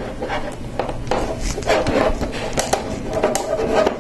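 Lego Technic plastic parts scraping and clicking as a body section is pushed onto the model, with a run of short sharp clicks.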